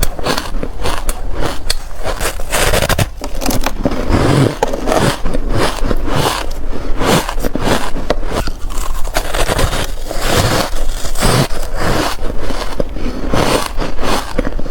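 Reshaped, powdery ice being bitten and chewed, heard close up: a dense, unbroken run of crisp crunches, crackles and scrapes.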